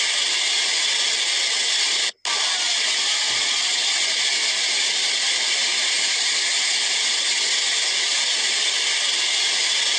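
Steady, even hiss like static, with no rumble or impacts, cutting out for a moment about two seconds in as the short clip loops.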